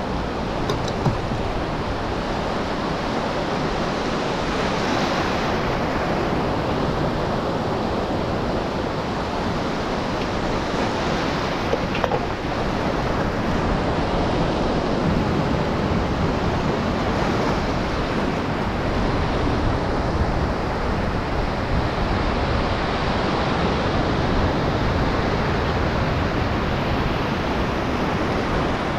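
Shallow surf breaking and washing around a small skiff in the shore break: a steady rush of foaming water.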